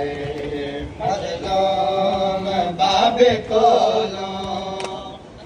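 Male voices chanting a noha, a Shia lament for Muharram, in long held melodic lines.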